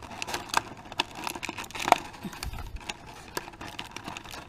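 Plastic toy packaging being handled and pried open by hand: scattered small clicks and crinkles, with one sharper click about two seconds in.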